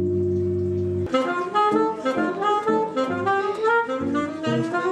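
A gong rings with a steady, sustained tone. About a second in it cuts to a saxophone and an electric guitar playing a fast, busy jazz line.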